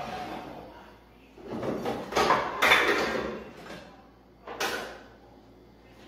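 Things being moved around inside an open refrigerator: containers and shelf items sliding and knocking in three bursts of rummaging, the longest and loudest in the middle.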